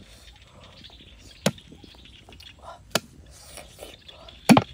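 Heavy cleaver chopping on a wooden stump chopping block, three sharp strikes about a second and a half apart. The last is a quick double chop and the loudest.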